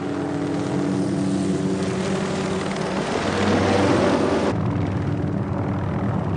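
AH-64 Apache attack helicopters flying low and fast past the camera: a steady rotor and turbine sound that grows louder up to about four seconds in. Then it changes abruptly to a duller, steady helicopter sound.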